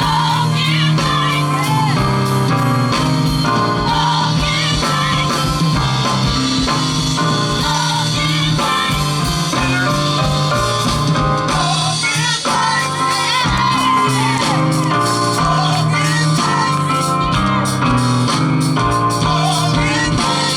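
Live gospel music: a vocal group singing with band accompaniment and a steady bass line, with shouted vocal lines.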